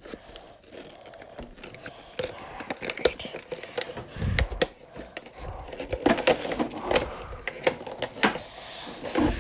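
Hands working at a cardboard action-figure box to get the tape off and open it: irregular scratching, clicking and rustling of cardboard and tape, with a couple of dull bumps against the box.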